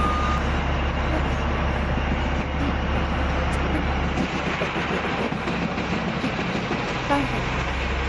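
Heavy logging machinery running steadily: a continuous dense mechanical noise with a strong low rumble.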